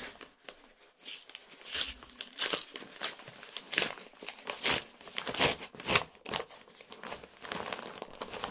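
Brown kraft-paper courier envelope being torn open and handled: irregular crinkling and ripping of paper, loudest about halfway through.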